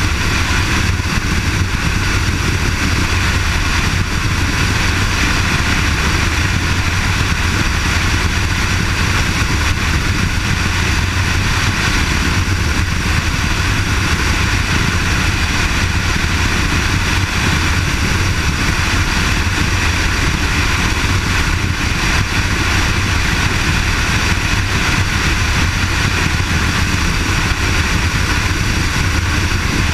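Kawasaki KLR650's single-cylinder four-stroke engine running steadily at highway cruising speed, with steady wind rush from riding at speed.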